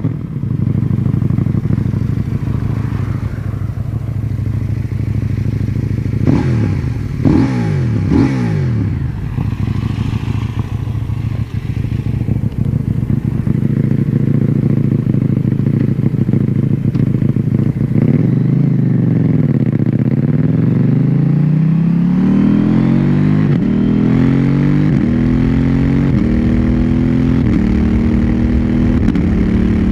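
KTM Duke 790's parallel-twin engine on its standard exhaust, idling just after start-up, with a few short throttle blips about six to nine seconds in. From about eighteen seconds it pulls away and accelerates hard, the pitch rising and dropping back briefly about every second and a half through a run of quick, clutchless quickshifter upshifts.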